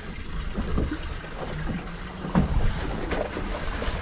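Wind buffeting the microphone over water lapping and slapping against a boat's hull, with a few short slaps about a second, two and a half and three seconds in.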